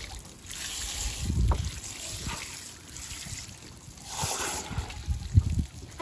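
Garden-hose spray nozzle rinsing out a gutted chicken, water spraying in two bursts: a longer one near the start and a short one about four seconds in. A few low thumps, the sharpest near the end.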